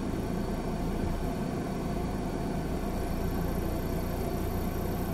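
A car's engine idling, heard from inside the cabin: a steady low rumble with no change in pitch.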